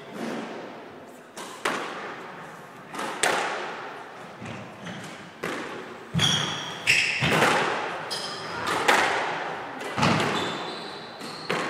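Squash rally: about a dozen sharp hits of the ball off rackets and the court walls, roughly one a second, each echoing in the enclosed court, with short high squeaks of sneakers on the wooden floor in the second half.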